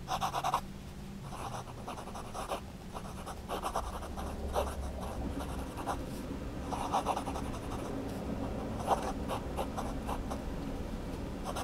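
Sailor Pro Gear Slim fountain pen with a 21-karat gold medium-fine nib writing on notebook paper: scratchy nib strokes in short runs as letters are formed, with brief pauses between words.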